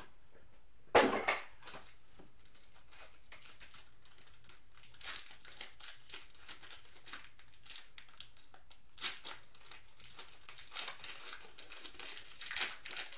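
Clear plastic card wrapping crinkling irregularly as trading cards are unwrapped by hand, after a sharp rustle about a second in as the lid comes off a small cardboard card box.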